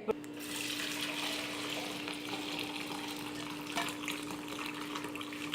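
Hot dry ginger coffee being poured from the pan through a strainer: a steady splashing trickle of liquid, with a couple of small clicks, over a low steady hum.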